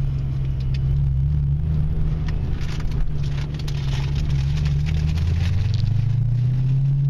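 Ford Mustang engine running at low speed, heard from inside the cabin, a steady low drone whose pitch rises near the end as the car picks up speed. Scattered light ticks sound over it.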